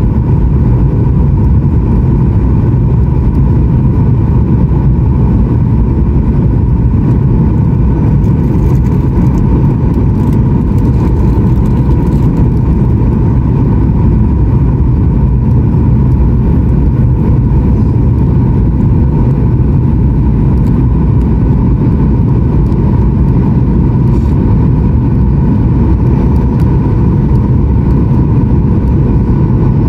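Steady cabin roar of a Boeing 737-900ER in flight, heard from a window seat beside the wing: engine and airflow noise with a thin, steady whine from its CFM56-7B turbofan engines.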